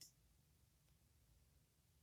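Near silence: room tone, with one faint, short click right at the start.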